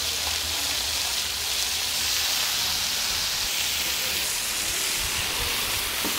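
Marinated chicken pieces sizzling in hot oil on a flat iron tawa: a steady frying hiss, with a low hum underneath.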